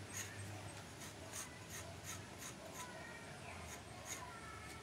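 Faint, repeated short scraping strokes of a blade along a fresh cinnamon branch, about two to three a second, shaving off the outer bark.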